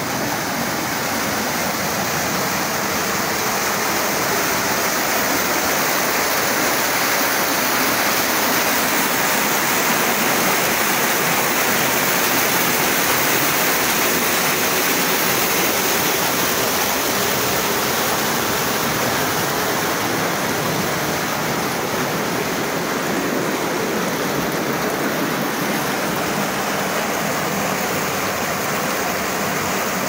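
Fast, turbulent water rushing along a narrow concrete irrigation channel, a loud steady rush.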